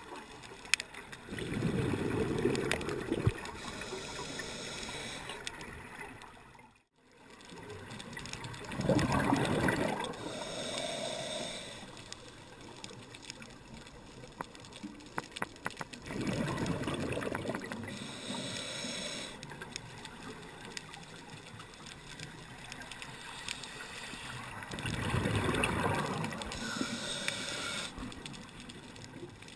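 Scuba diver's regulator breathing heard through a GoPro waterproof housing underwater: four rushes of exhaled bubbles, each one to three seconds long, about every seven to eight seconds, over a steady muffled underwater background. The sound drops out briefly about seven seconds in.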